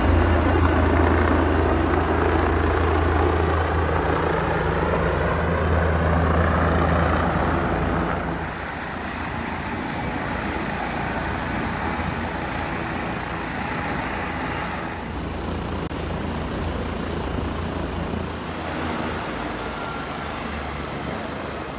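Leonardo AW169 twin-turbine helicopter running in flight, a steady loud rotor and turbine drone with slowly sweeping tones as it moves. It is loudest for the first eight seconds, then steps down and changes character about eight seconds in and again around fifteen seconds.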